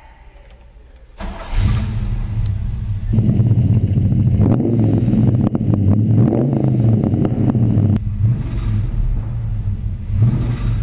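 A 1967 Chevrolet C10 pickup's engine starting about a second in and then being revved, with the exhaust note rising and falling several times. It eases off briefly near the end and climbs again.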